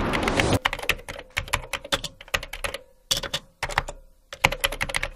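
A short whoosh, then a keyboard-typing sound effect: rapid clicks in bursts with brief pauses, as text types out on screen.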